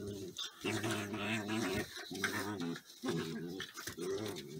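Border collie puppies growling as they play fight: a run of low growls, each up to about a second long, with short breaks between.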